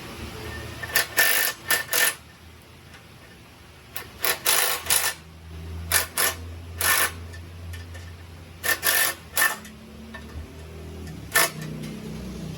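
Metal hand tools clinking and clicking on exhaust hardware, in short bursts of several quick clicks about every couple of seconds, during a muffler and gasket replacement.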